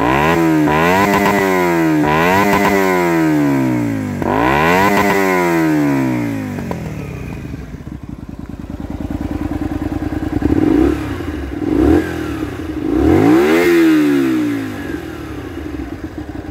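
Honda Varadero 125's V-twin engine with an aftermarket LeoVince silencer, revved at standstill: several rising and falling revs in the first six seconds, a few seconds of idle, then two short blips and one more rev near the end before it settles back to idle.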